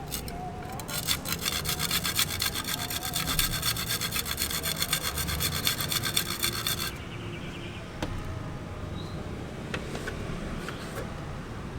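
A saw cutting through material for about six seconds, with a rapidly pulsing rasp, then stopping abruptly.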